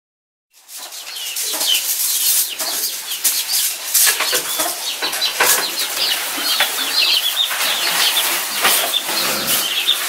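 Chickens: many quick high chirps among short sharp clicks, starting suddenly about half a second in.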